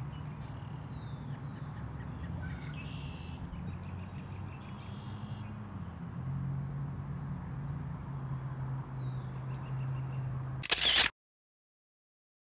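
Birds chirping over a low steady hum, then near the end one short, loud shutter clack from the Pentax 6x7 medium-format film camera, after which the sound cuts off.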